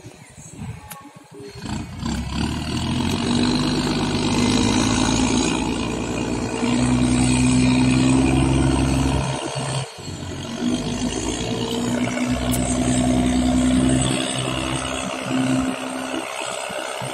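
Sand barge's diesel engine running hard under heavy load as it strains to push the stranded, loaded barge through a shallow canal. The engine comes up about a second and a half in, drops away for a moment near the middle, then picks up again.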